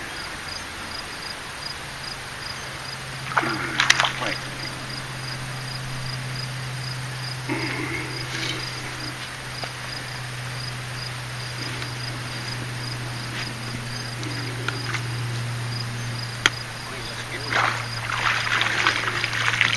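Insects chirping in a steady, evenly spaced high pulse, over a low steady hum. A few short voice-like sounds come through at about four and eight seconds and again near the end.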